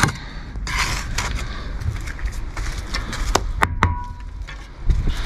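Bricklayer's steel trowel scraping mortar, then knocking a thermalite block down three times in quick succession, a little past three seconds in. One knock leaves a short metallic ring. A low rumble comes in near the end.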